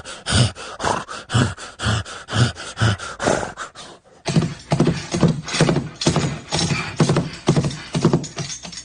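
Horse-hoof clip-clop sound effect: knocks at a walking pace, about two a second, then after a brief break near the middle a faster, denser run of hoof strikes.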